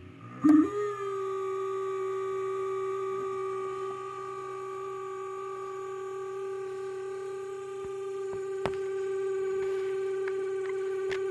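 Cooling fan of an aftermarket LED H4 headlight bulb giving a steady droning hum. It cuts out at the start, then comes back about half a second in with a brief loud rise in pitch, and there is a single click near the end. This is an abnormal startup noise, with the fan felt to be a bit loose in its housing; it goes away once the bulb warms up.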